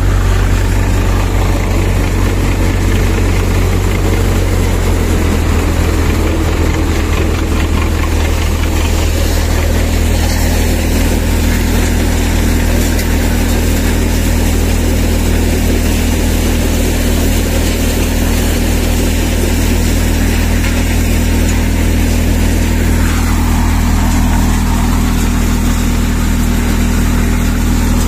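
Tractor engine driving a four-fan maize thresher through its PTO, running steadily under load as the machine shells maize and blows out husk. The drone is even throughout, with a slight shift in its low hum about five seconds in.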